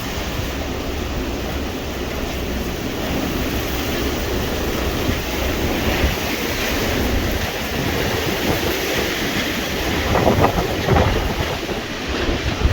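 Storm noise: a steady roar of wind and rain, with wind buffeting the microphone and a few louder gusts about ten seconds in.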